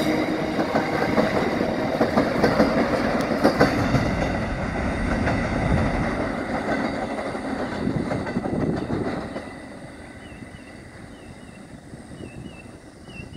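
Empty coal hopper wagons rolling past, their wheels clacking over the rail joints. The rumble fades away about nine seconds in as the last wagons go by.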